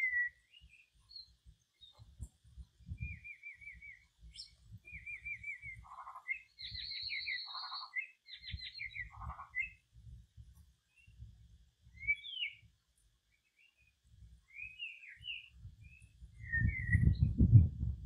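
Bird chirps and short trilled calls, several in quick succession, over low rumbling thuds that grow louder near the end.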